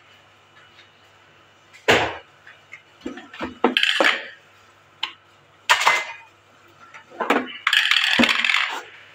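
Kitchenware being handled: a metal bowl and other dishes and utensils knocking and clattering against each other and the counter in irregular clanks, with a longer stretch of clatter about eight seconds in.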